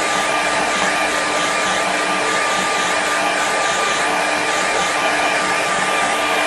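Handheld hair dryer blowing steadily, drying wet watercolour paint: a constant rush of air with a steady high whine from its motor.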